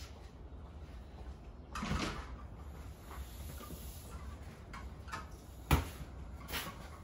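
Handling noises as a mountain bike wheel and tyre is picked up and laid on a plastic bucket: a short rustle or scrape about two seconds in, then one sharp knock near the end.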